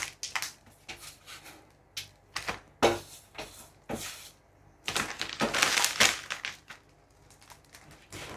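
Plastic vacuum bag crinkling and rustling as it is handled, in irregular bursts with short crackles, busiest about five to six seconds in.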